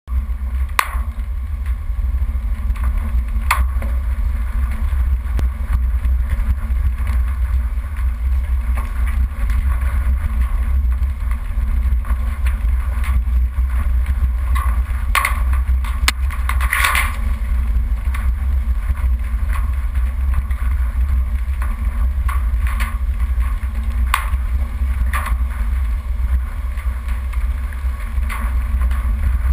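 Four-wheel-drive vehicle driving down a rough dirt track: a steady low rumble of engine and tyres, with scattered knocks and rattles over bumps, the loudest about 17 seconds in.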